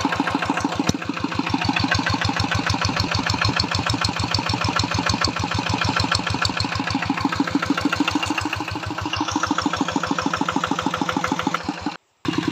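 Kubota single-cylinder diesel engine on a homemade walking tractor running with a steady, rapid chug. The sound drops out for a moment near the end.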